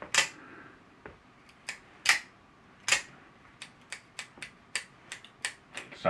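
Out-the-front switchblade's double-spring mechanism clicking over and over as it is worked, the mechanism not working properly. A few sharp clicks spread through the first three seconds, then smaller clicks coming quicker, about three a second.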